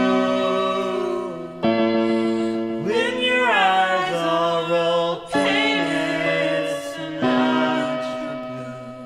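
Sustained chords on a small synthesizer keyboard, changing about every couple of seconds, with a voice singing long gliding notes over them; the music fades away near the end.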